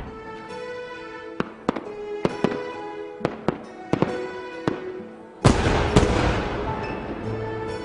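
Fireworks going off in a string of sharp bangs over music with held notes; about five and a half seconds in a much louder burst with a hissing, crackling tail dies away over a couple of seconds.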